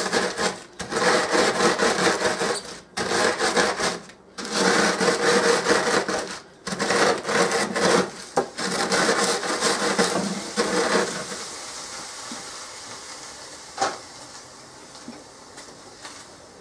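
Rolling pin pushed back and forth over a zip-top plastic bag of dry stuffing mix, crunching and crushing the crumbs in a run of scraping strokes one to two seconds long. The rolling stops about eleven seconds in, and a single sharp click comes near the end.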